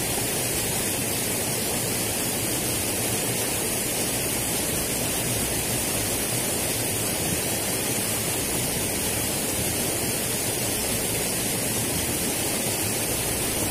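Steady rush of fast-flowing water in a stone-walled drainage channel.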